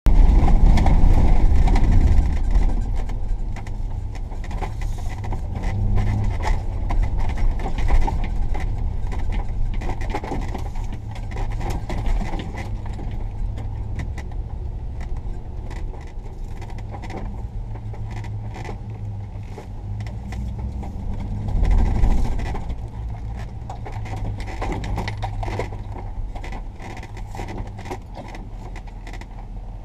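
Van driving over a rough sandy dirt road, heard from inside the cab: a low engine and road rumble with many small rattles and clinks from the cabin. Heavier jolts come about 8 and 22 seconds in.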